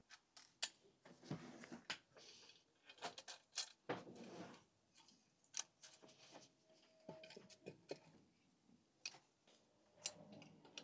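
Faint, scattered light clicks and knocks of a lower inlet manifold being handled and set down over its new gasket onto a VW 16V twin-cam cylinder head, with a few brief rustles.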